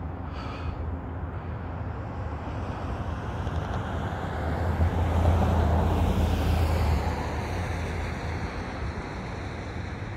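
Distant thunder rolling: a continuous low rumble that swells about halfway through and then slowly fades.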